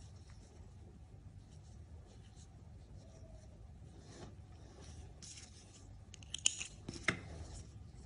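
Faint rustle and scratch of yarn being worked with a metal crochet hook, the hook pulling loops through the stitches. Two sharp clicks come near the end.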